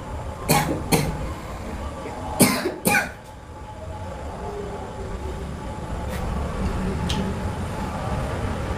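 Four short coughs in two pairs, about a second and a half apart, over a steady low rumble of room noise.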